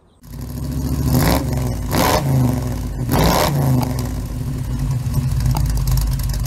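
1936 Chevy coupe's small-block Chevy 350 V8 running, revved three times about a second in, at two seconds and past three seconds, each rev falling back before it settles into a steady run.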